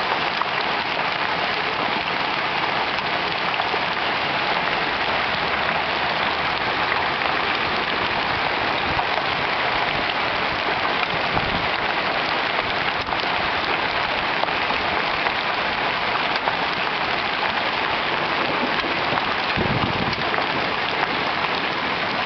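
Hailstorm: hail and rain pelting down on the lawn, sidewalk and street in a steady, dense patter that does not let up.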